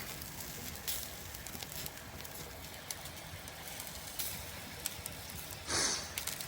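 Campfire crackling, scattered sharp pops over a steady hiss, with water dripping from the rock overhang. A short rushing noise comes near the end.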